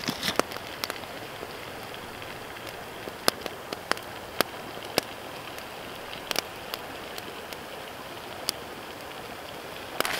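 Floured brook trout frying in butter in a pan over a wood campfire: a steady sizzle, broken by sharp, scattered pops of the burning wood crackling. The sizzle and crackle swell near the end.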